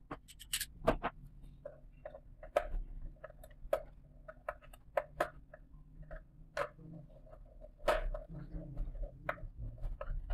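Irregular clicks, taps and light knocks from hands and a small tool working stiff red control wires into the terminals of a metal push-button control box, the wires brushing and knocking against the box.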